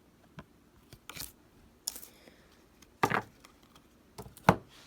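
A handful of sharp taps and clicks at irregular spacing, the loudest near the end: tarot cards being handled and set down.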